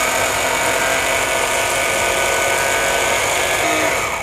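Sailrite LSZ-1 Ultrafeed walking-foot sewing machine's motor running steadily at speed to wind a bobbin of bonded nylon thread, with the hand wheel clutch disengaged so only the bobbin winder turns. It is a steady, even whine that stops right at the end.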